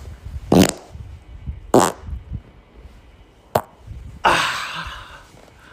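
Farts: three short ones spread over the first few seconds, the third very brief, then a longer airy, hissing one that fades away.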